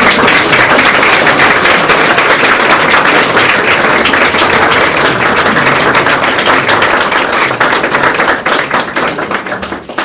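Applause from a roomful of people clapping their hands, loud, dense and sustained.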